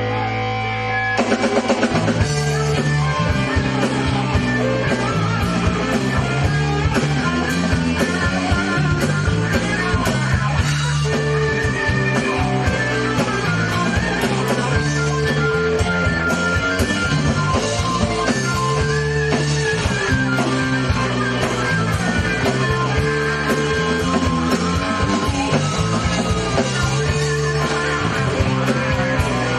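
Live rock band of electric guitars and a drum kit playing an instrumental passage with no vocals. A held chord rings for about the first second before the drums and full band come in.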